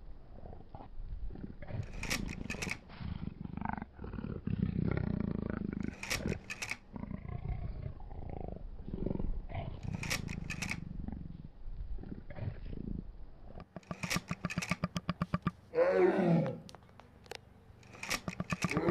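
Large wild animal growling and roaring, a big cat such as a lion, with a run of quick grunts and one long roar falling in pitch near the end.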